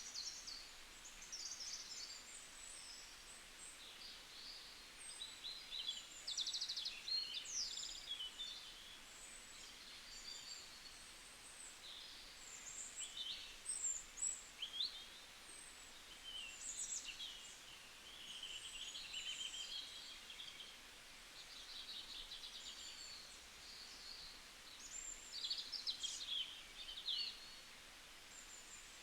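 Several small songbirds singing and calling at once: quick chirps, trills and short whistled glides, high-pitched and overlapping, with louder bursts of song now and then.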